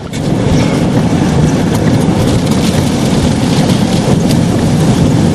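Loud steady roar of strong tornado wind buffeting a vehicle, with scattered sharp ticks through it.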